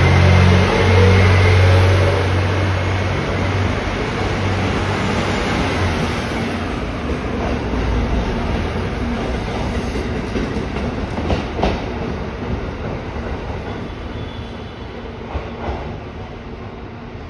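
JR East KiHa E130-series diesel railcar pulling away under power: its diesel engine runs loud and low, with a whine rising in pitch at first. The sound then fades as the train moves off, with a few clicks of wheels over rail joints late on.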